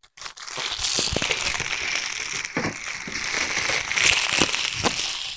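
Plastic bubble wrap crinkling and rustling close to the microphone as it is handled, with many small sharp crackles.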